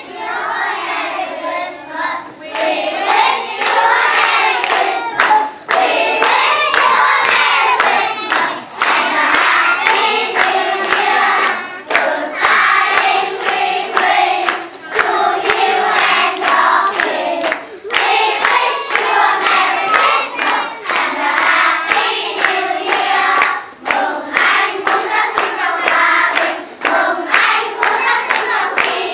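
A choir of young children singing together, with hands clapping in time along with the song.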